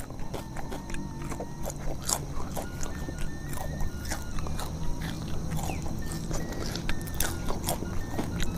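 Close-up chewing of raw leafy vegetables (lalapan): irregular crunches, clicks and wet mouth smacks over a faint steady low hum.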